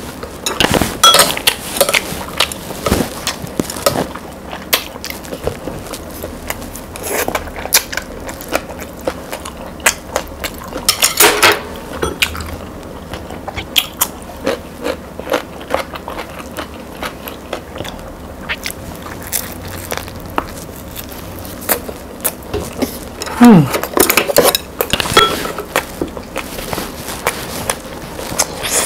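Close-up eating sounds: irregular crunching and chewing of a crusty baguette sandwich with pork pâté and crisp cucumber slices, with louder bursts of bites now and then.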